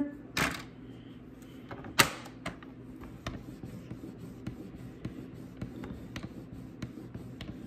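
Tabletop paper trimmer used for scoring cardstock: a brush of paper about half a second in, a sharp click at about two seconds, then a run of light plastic clicks and scraping as the scoring blade carriage is worked along the rail.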